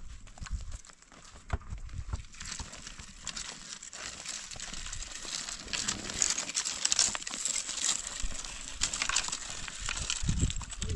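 Dry, leafless branches dragged over stony ground, their twigs scraping and crackling against the rocks, with crunching footsteps on loose stones. It builds up about two seconds in and is loudest around the middle.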